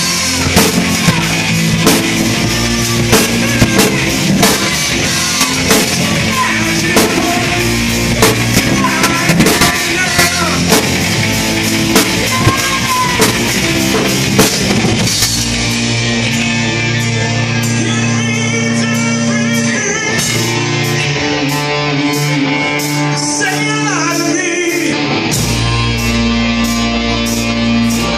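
A live band plays with drum kit, electric guitar, keyboard on a Yamaha Motif XF6 synthesizer and a male singer. About halfway through the heavy drumming drops out, leaving held keyboard and bass notes over a regular cymbal tick.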